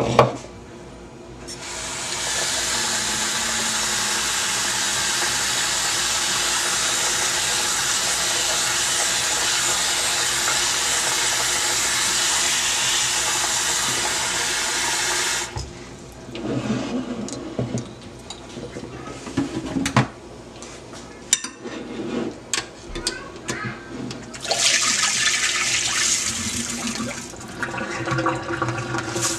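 Kitchen faucet running steadily into a bowl of rice for about fourteen seconds as the rice is rinsed, then shut off. Knocks and swishing of the rice being stirred in the water follow, then another short run of water, and near the end water and rice pour through a mesh strainer into the sink.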